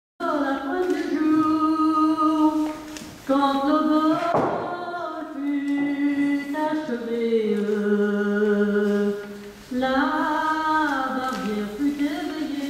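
An unaccompanied singing voice holding slow, long notes in three phrases.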